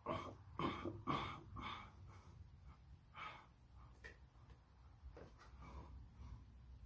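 A man breathing hard through push-ups, with short sharp exhales: four quick ones in the first two seconds, then a few more spaced further apart.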